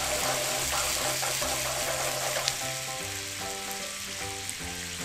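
Pork ribs and sausage sizzling steadily in a frying pan as the white wine they were deglazed with cooks down. Soft background music plays underneath.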